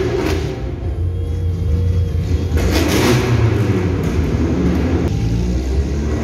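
Car engine running under way with road noise, heard from inside a moving car; a louder rush lasts about a second, some two and a half seconds in.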